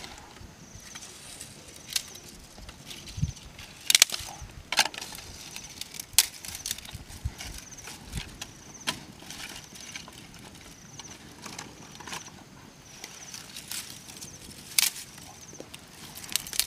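Dry grass and twigs crackling and snapping as a small fire is kindled, with a handful of sharp cracks spread through the stretch. Faint high chirping comes and goes in the background.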